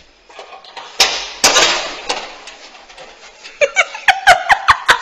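Two loud bangs about half a second apart as a door is opened, then rapid, rhythmic laughter of about five 'ja's a second starting about three and a half seconds in.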